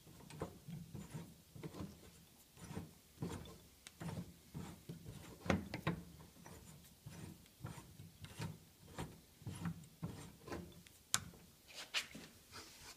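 Homemade Moxon vise being worked by hand: irregular wooden knocks, clicks and short rubs as the jaw and its pipe-clamp pipes are slid back and forth. The waxed pipe is slipping through the pipe clamps' locking catches instead of catching and clamping down.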